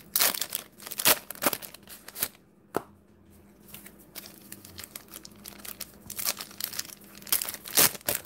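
Crinkling and tearing of trading-card pack wrappers, with cards being handled: clusters of sharp crackles at the start and again near the end, quieter for a few seconds in between.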